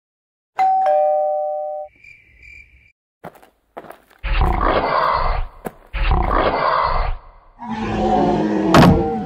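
A two-note ding-dong doorbell chime, falling from the higher note to the lower, about half a second in. From about four seconds in come three roars: two rough ones about a second each, then a longer, deeper growling one near the end.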